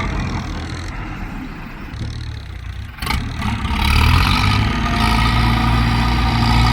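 Tractor diesel engine running steadily. About three seconds in, the sound drops out briefly and comes back louder and deeper.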